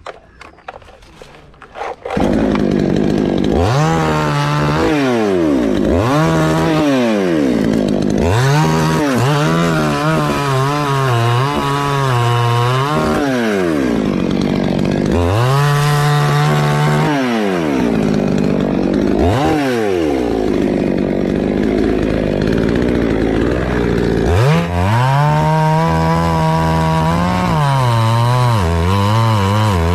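Two-stroke chainsaw, quiet for the first two seconds apart from a few clicks, then running loud and revving up and down again and again as it saws through a teak log.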